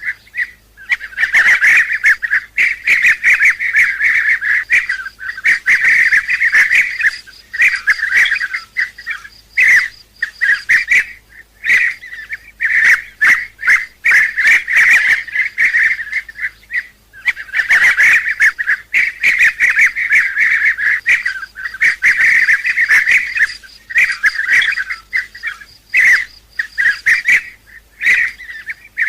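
Bee-eaters calling: a dense run of rolling, trilled calls, many overlapping, repeating in short bursts with brief pauses between them.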